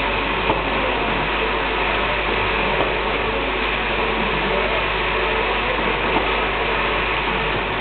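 Steady machine noise from a running automatic spot welding line in a workshop: an even, continuous whooshing hiss with a few faint clicks.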